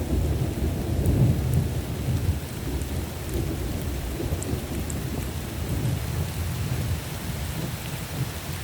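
Thunderstorm: a long roll of thunder rumbling over steady rain, loudest about a second in and slowly dying away.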